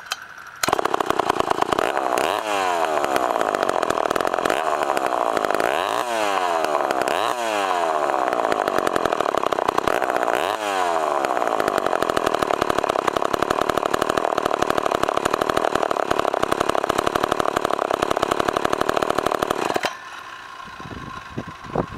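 Poulan 306 two-stroke chainsaw, freshly rebuilt, catching about half a second in and running. It is revved up four times, pitch rising each time, then runs steadily until it cuts off suddenly near the end.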